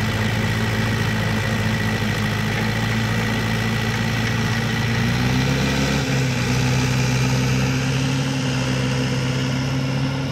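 Mahindra tractor's diesel engine running steadily while towing a trolley loaded with sand. About five seconds in the engine note rises a step as it revs up under the load and holds at the higher pitch.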